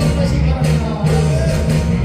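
Loud Korean trot music with a steady bass line, the accompaniment to the duo's stage song.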